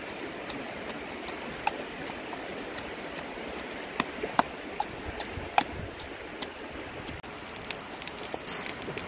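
Wooden pestle knocking now and then in a clay mortar over a steady rushing of stream water. Near the end come a quicker run of light clicks and knocks.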